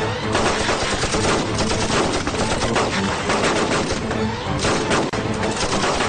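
Heavy battle gunfire from rifles, with many shots overlapping in a continuous, dense rattle.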